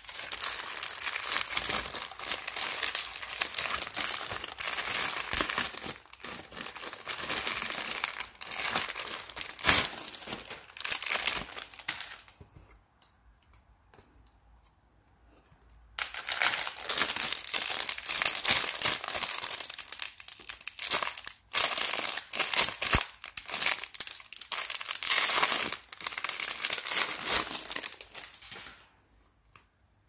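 Plastic packaging wrap rustling and crackling as it is handled and pulled off an unboxed robot vacuum's parts, in two long stretches with a few seconds' quiet break in the middle.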